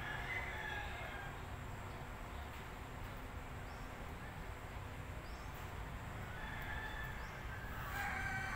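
Faint animal calls in the first second, then again toward the end, growing a little louder, over a steady low outdoor background noise.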